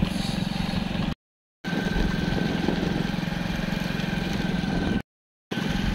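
Motorcycle engine running steadily at road speed, with wind noise on the microphone. The sound cuts out completely twice for about half a second.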